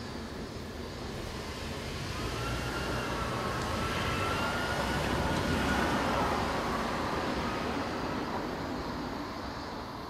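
A minivan drives slowly over a railroad level crossing. Its engine and tyre noise swell to a peak about six seconds in and then fade, with a faint whine that drops in pitch as it passes.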